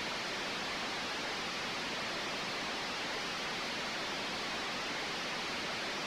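Steady, even static hiss with no other sound, standing in for a soundless security-camera feed; it cuts off abruptly at the end.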